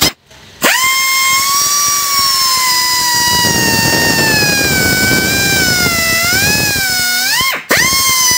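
Small pneumatic air drill spinning up to a high, steady whine with a hiss of exhaust air, its pitch sagging slightly as the bit bores into a block of wood. Near the end it stops for a moment and spins straight back up.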